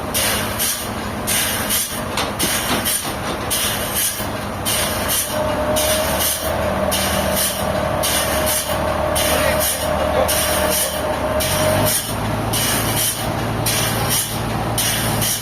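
Sawmill machinery running steadily, with a whine that comes in about five seconds in and stops near twelve seconds, where the low drone changes pitch.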